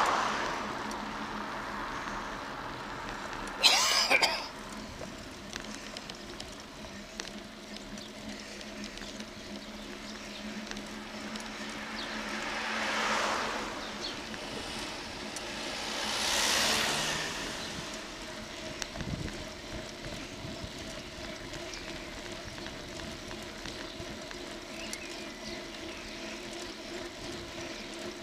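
Steady wind and road noise from a bicycle ride, with cars passing about 13 and 16 seconds in, each rising and fading. A brief loud clatter comes about 4 seconds in.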